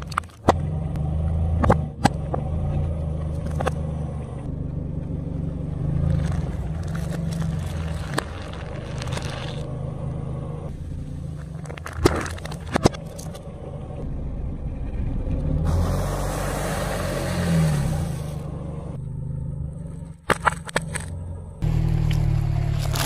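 A car tyre crushing objects on asphalt, over the low hum of the car's engine running: a run of sharp cracks and snaps, a pair of cracks as a drink can bursts about twelve seconds in, then a few seconds of hissing spray.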